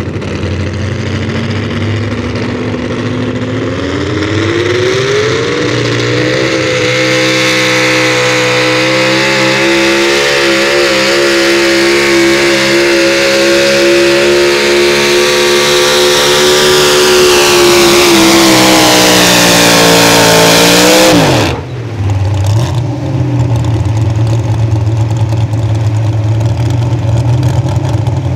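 Super Stock 4x4 pulling truck's engine at full throttle under load on a pulling sled. It revs up over a few seconds and holds high revs for about fourteen seconds. It cuts off abruptly about three quarters of the way through, then settles to a lower steady rumble once the pull ends.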